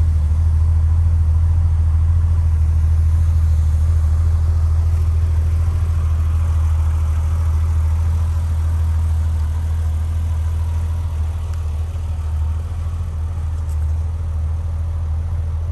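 Porsche 993 Carrera's air-cooled flat-six engine idling steadily, a deep even hum that grows a little quieter in the second half.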